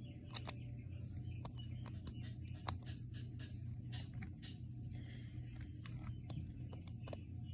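Lock pick and tension wrench working the pins of a Brinks padlock: sharp, irregular metallic clicks, sometimes several a second, over a low steady hum.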